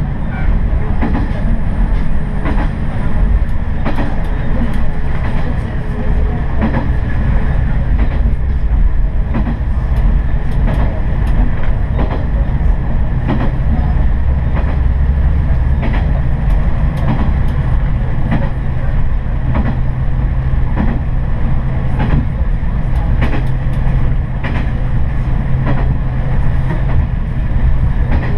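Noto Railway diesel railcar running along the line, heard from inside the car: a steady low engine and running drone with wheels clicking over rail joints at irregular intervals.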